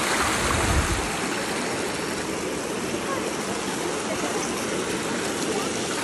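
Shallow cascade of water rushing and splashing over rocks: a steady, even hiss. Low buffeting on the microphone during the first second.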